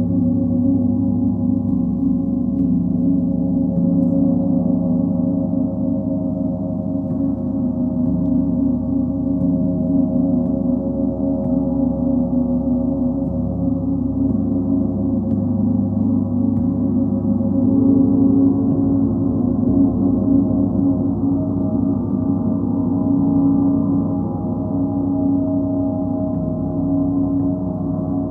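Large gongs (Sun, Full Moon and Earth gongs) played with a soft mallet, giving a dense, sustained wash of low ringing tones that swells and eases without distinct strikes.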